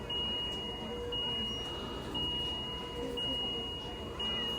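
Electronic alarm in a hospital beeping: a single high tone held almost a second, broken by a short gap, repeating about once a second, over a steady background hum.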